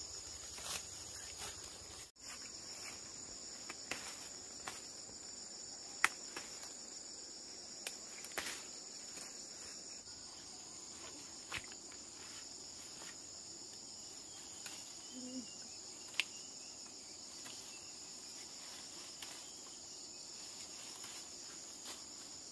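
Steady, high-pitched chorus of insects, with scattered short sharp clicks and snaps of plants being handled among the bushes.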